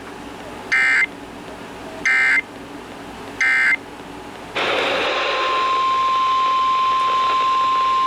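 Emergency Alert System SAME header: three short bursts of chattering data tones about a second apart. After radio hiss rises, the single steady NOAA Weather Radio warning alarm tone at 1050 Hz starts about five seconds in, marking the start of a new alert.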